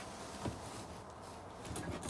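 Wood bonfire burning and crackling, with one sharp pop about half a second in and a few quick snaps near the end.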